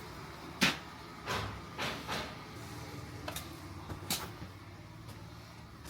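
A series of sharp, irregular knocks and clicks, about seven in all, the loudest a little over half a second in, over a faint steady background.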